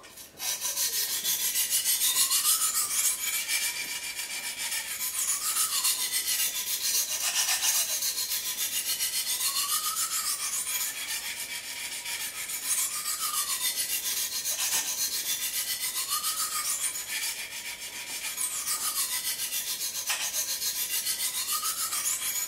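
A 400-grit stone on a clamp-guided angle sharpening kit scrubbing along the edge of a large steak knife at about 25 degrees: a steady rasping made of quick short strokes, starting about half a second in. It is grinding the first side of the edge to raise a burr along its whole length.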